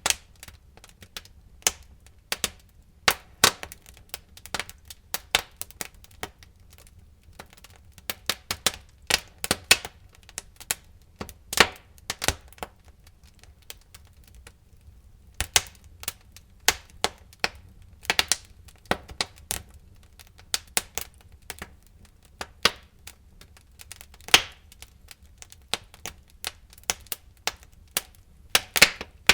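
Wood fire crackling in a fireplace: irregular sharp pops and snaps, some loud, over a steady low rumble, with a brief lull in the popping about halfway through.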